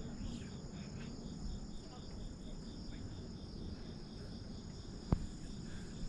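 Insects chirring in the trees: a steady high drone with a pulsing call that repeats about three times a second. A single sharp click comes about five seconds in.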